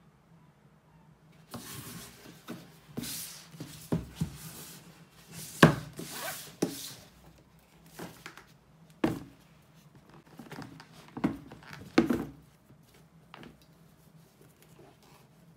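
A cardboard shoe box and sneakers being handled: irregular rustling and scraping with several soft knocks, the loudest about six seconds in and again near twelve seconds.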